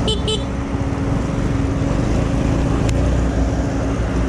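Motorcycle engine running at a steady speed with road noise as it rides a rutted dirt road. A brief double chirp comes right at the start, and a single click about three seconds in.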